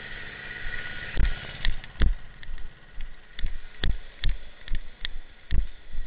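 Irregular heavy thumps, about two a second, from footsteps and the jostling of a camera carried by someone moving fast through woodland.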